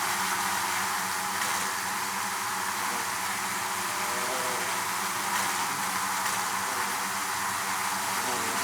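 Honeybees buzzing in a hive: a steady drone of many bees, with single bees' buzz wavering in pitch above it now and then.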